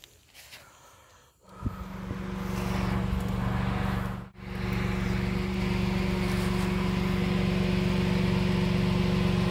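A motor vehicle's engine comes on suddenly about a second and a half in and then runs steadily at an even pitch, with a brief dropout about four seconds in. A few faint clicks come before it.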